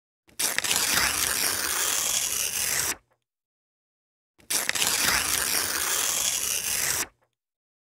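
Paper being torn: two long, crackly rips of about two and a half seconds each, separated by about a second and a half of silence.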